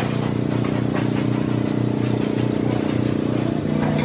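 An engine running steadily, its pitch shifting slightly near the end, with a few light clicks.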